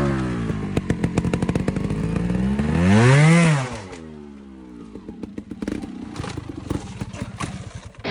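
Beta trials motorcycle engine revving as it climbs over rocks. The pitch dips, then rises sharply to a loud blip about three seconds in, then falls back. The engine then runs quieter as the bike moves off, with repeated sharp knocks and clatter of the tyres and chassis on rock.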